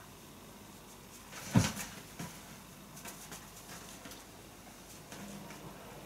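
A dull thump about a second and a half in, then a few lighter knocks and rustles, as a whippet puppy is handled and turned around on a rug.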